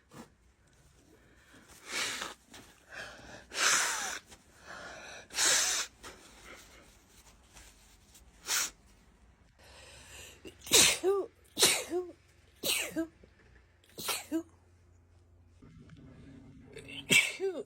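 A woman sneezing over and over in a fit, about ten sneezes. The later ones come about a second apart, each ending in a voiced 'choo' that falls in pitch.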